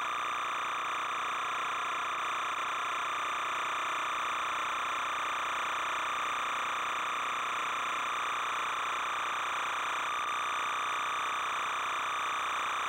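Steady, unchanging whirring noise at an even level, with no separate events in it.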